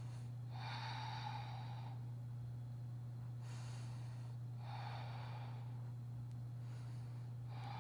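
A person breathing audibly, about five slow breaths in and out, while holding a strenuous yoga pose, over a steady low electrical hum.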